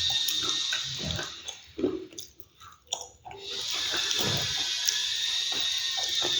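Close-miked chewing and crunching of food, short irregular crunches over a steady hiss that drops out briefly in the middle.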